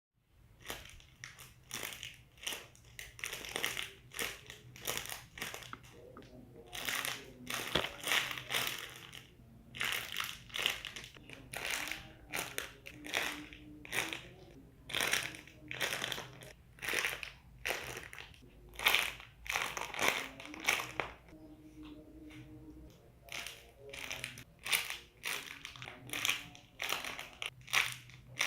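Homemade squishy toys being squeezed and released over and over, making short noisy squishes about one to two times a second.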